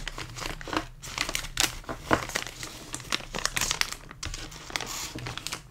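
Plastic candy packaging crinkling as it is handled, a dense run of irregular crackles.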